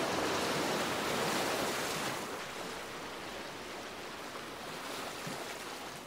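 Ocean waves breaking and washing as surf, loudest for the first two seconds and then easing to a softer wash.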